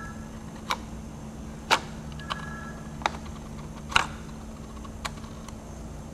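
A homemade cardboard-box joke-telling machine's mechanism clicking and clacking as it changes its card, about six irregular clicks with the loudest two about two and four seconds in. There is a brief squeak about two and a half seconds in, over a steady low hum.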